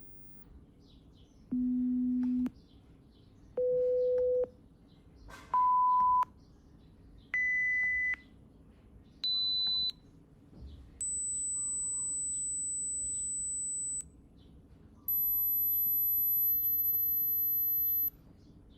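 A hearing-test app plays seven steady pure-tone beeps one after another, each higher in pitch than the last, from a low tone up to a very high whistle. They step through the standard audiometric test frequencies. The first five last about a second each; the last two are longer, about three seconds. Faint bird chirps sound in the background.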